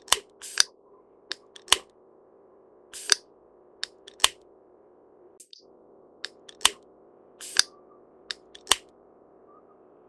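Great spotted woodpecker pecking at dead wood: irregular sharp taps, some single and some in quick pairs or threes, over a steady faint hum.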